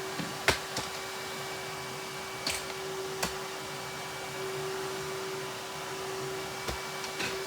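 A handful of short knocks and clicks, about six in all, of objects being picked up and set down while clutter is tidied. The sharpest comes about half a second in. Under them runs a steady hum with a held tone.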